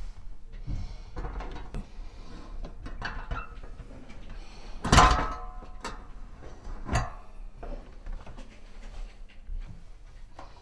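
Electric radiator being hooked onto its metal wall brackets: scattered knocks and scraping of the heater's metal body against the brackets, with one loud clank and a short ring about halfway through and a smaller knock a couple of seconds later.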